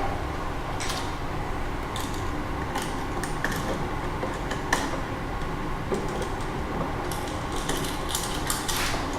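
Scattered small metallic clicks and taps from pliers bending a small hook into the end of a bare copper ground wire. The clicks come thicker near the end, over a steady low background hum.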